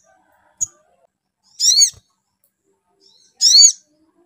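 Olive-backed sunbird calling: short high-pitched calls, each a quick arching note under half a second long, repeated about every second and a half, with a single short chip before the first.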